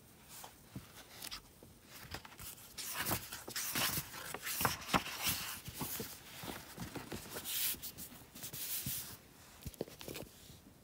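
A hardcover sketchbook being handled and opened, its paper pages rustling and swishing as they are turned, with small taps and clicks among them. The rustling is busiest a few seconds in and fades near the end.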